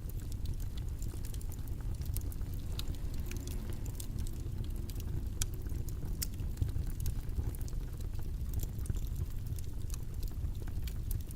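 Steady low rumbling background noise, with faint, irregular small clicks and ticks scattered throughout.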